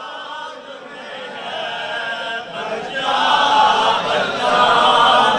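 Many men's voices chanting together in a sustained, choir-like refrain, growing louder about three seconds in.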